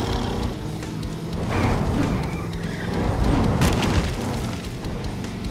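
Action background music overlaid with booming impact sound effects, with a sharp crash about three and a half seconds in.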